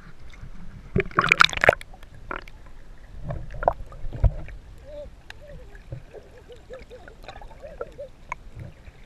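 Action camera plunging into seawater with a loud splash about a second in, then muffled underwater sound: gurgling bubbles, scattered knocks and low thumps from swimmers moving nearby.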